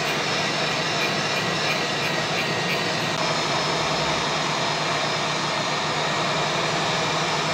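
Hot air rework station blowing a steady rush of air onto a laptop motherboard, heating a chip to desolder it from the board.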